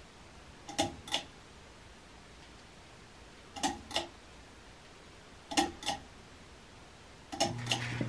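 Pull-chain speed switch of a Casablanca Delta II ceiling fan clicking through its settings: four pulls, each a pair of sharp clicks with a short metallic ring. With the last pull, near the end, a steady low motor hum starts as the fan is switched off its high setting.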